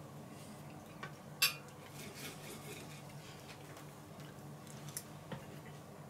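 Knife and fork clinking and scraping on a plate while a steak is cut: one sharp clink about a second and a half in, then a few fainter taps, over a faint low hum.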